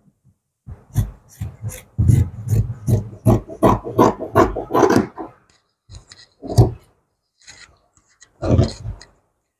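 Scissors cutting through fabric on a table: a quick run of snips, about four a second for some four seconds, then a few scattered single sounds near the end.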